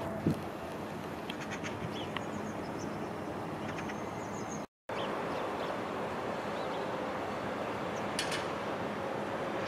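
Alstom Citadis Dualis tram-trains, two coupled units, running past at steady speed: a continuous rolling rumble and hiss with a faint steady tone in the second half. A short thump sounds just after the start, a few short high chirps come through, and the sound drops out for a moment about halfway through.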